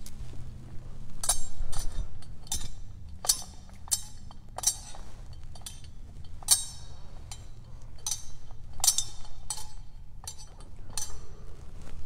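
A dozen or so short, bright clinks and taps at uneven intervals: altar vessels being handled and set down on the altar.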